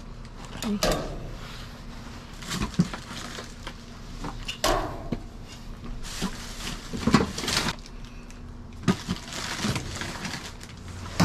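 Trash being rummaged through in a dumpster: plastic bags and cardboard packaging rustling and crinkling, with irregular knocks and scrapes as items are pulled and shifted with a reach-grabber and gloved hands.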